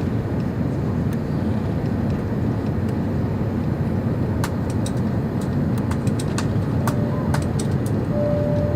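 Steady airliner cabin noise: the engine and airflow rumble heard inside a passenger plane in flight. There are a few light clicks in the second half and a short steady tone near the end.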